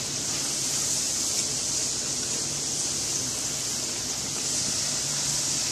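French fries deep-frying in hot oil in a pan: a steady sizzle of bubbling oil.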